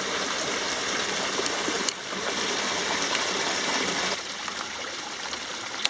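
Rainwater runoff running and splashing down a granite rock channel as a small desert waterfall: a steady rush of water that drops a little in level about two seconds in and again about four seconds in.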